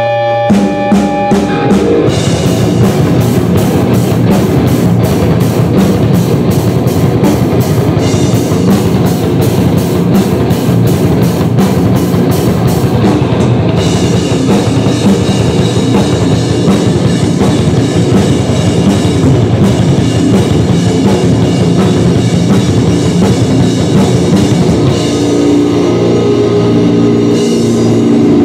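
Heavy metal band playing live, with electric guitar, bass guitar and drum kit; the full band comes in about half a second in after a held chord.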